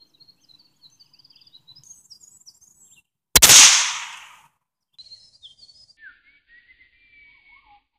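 A single .22 rifle shot fired with a high-velocity segmented hollow point .22 round: one sharp crack about three and a half seconds in, dying away over about a second. Birds chirp faintly before and after it.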